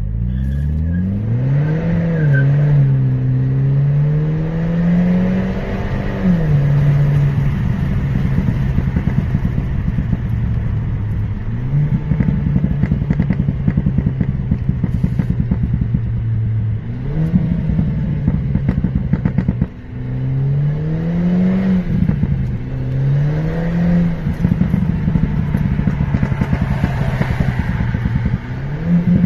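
Stage 1 Mercedes-Benz A250 (260 hp) with an FI valved exhaust: the turbocharged 2.0-litre four-cylinder revs up hard five times and falls back. Between the pulls the exhaust gives rapid crackling and popping on the overrun.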